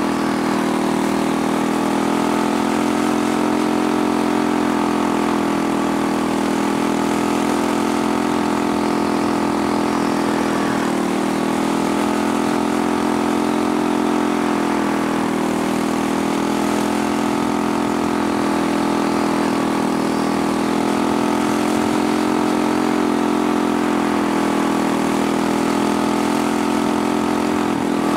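Quarter midget's single-cylinder Briggs & Stratton Animal engine running hard, heard from onboard as the car laps. The engine note holds steady and dips a little in pitch every few seconds.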